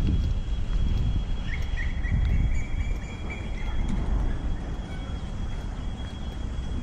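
Outdoor park ambience: a low rumble that swells and fades about once a second, a steady thin high tone, and a bird giving one drawn-out whistle from about a second and a half in, with a few short chirps.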